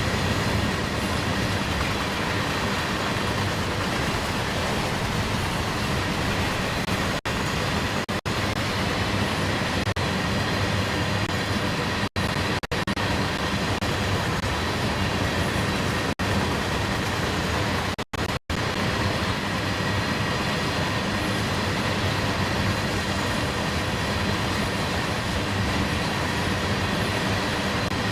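CSX freight train rolling past, the cars making a steady, even rail noise, cut by a few split-second dropouts.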